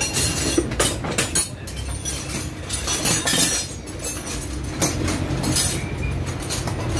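Metal parts and tools clinking and knocking at irregular moments, over a steady low machine hum.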